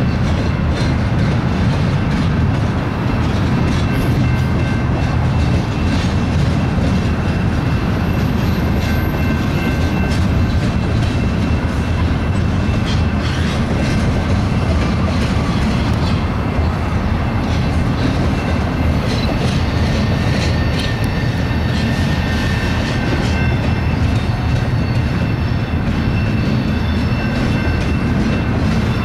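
BNSF double-stack intermodal train's well cars rolling past: a steady rumble of steel wheels on rail, with faint clicks of wheels over rail joints and a thin, steady high ringing from the wheels and rail.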